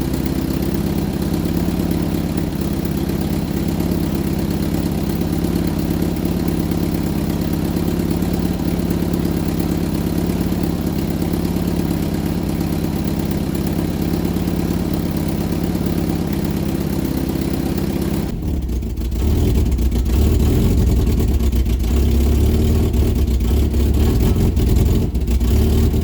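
Vauxhall Viva HC engine running steadily, not sounding happy. About two-thirds of the way through, the sound changes to a louder, deeper, rougher running. The owner thinks the racket is the flywheel clipping a loose cover plate in the gearbox, and the exhaust manifolds are loose and lack gaskets.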